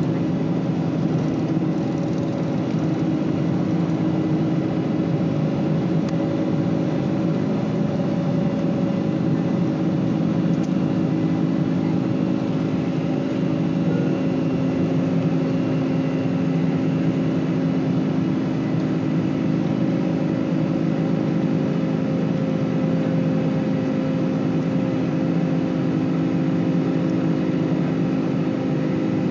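Boeing 747 jet engines heard from inside the cabin during the climb after takeoff: a steady roar with a low hum and a higher tone that drifts slowly down.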